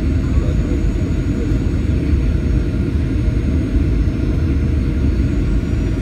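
Boeing 737-800 cabin noise during approach, heard from inside the cabin: a steady low rumble of engines and airflow with faint steady whining tones above it.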